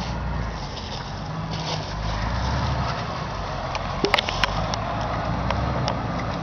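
Jeep engine running with a steady low rumble as it drives through a muddy field. A few sharp clicks come about four seconds in.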